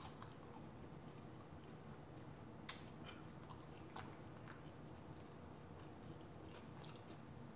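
Faint chewing of fried chicken wings by someone close to the microphone, with a few soft mouth clicks spread through.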